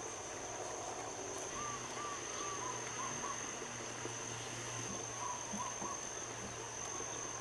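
Outdoor background: a steady high-pitched insect drone, with a bird twice giving a short run of quick repeated notes.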